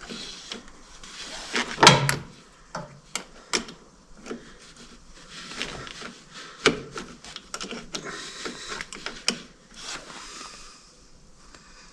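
Scattered metallic clicks, taps and scraping from a wrench working a battery cable clamp onto a new tractor battery's terminal, with a louder knock about two seconds in.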